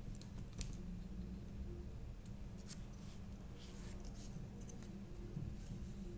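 Faint, scattered light clicks and taps of a small circuit board and parts being handled on a workbench, over a low steady hum.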